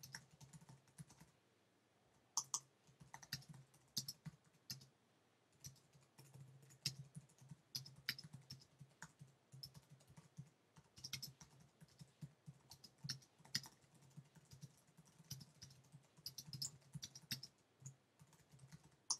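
Typing on a computer keyboard: quick, uneven runs of key clicks with short pauses between words and phrases, over a faint steady low hum.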